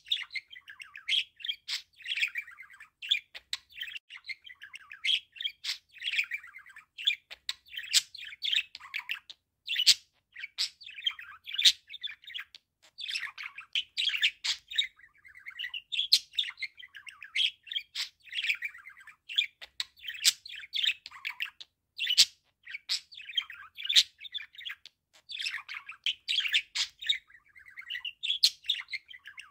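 Male budgerigar warbling: a continuous chattering song of chirps, squeaky notes and sharp clicks, run together in phrases a second or two long with brief breaks between them.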